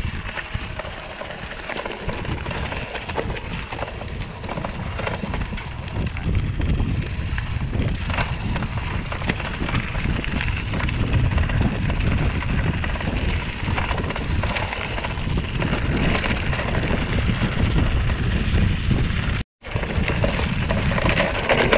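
Mountain bike rolling down a loose, stony dirt trail: tyres crunching over gravel and the frame and parts rattling, with wind rumbling on the microphone. The sound drops out for a split second near the end.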